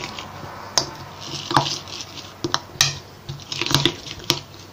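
Unripe green grapes (koruk) being crushed in a ceramic bowl with a drinking glass, pressed down hard: wet squishing and crunching, with several sharp clinks of glass against the bowl.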